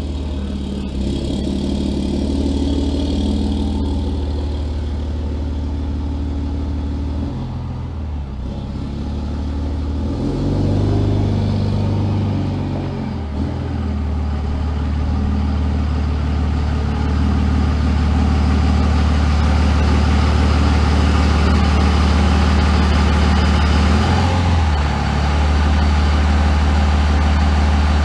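Dodge pickup truck's engine running as the truck is turned around and driven up close, growing louder toward the end. The engine pitch rises and falls briefly about ten to thirteen seconds in.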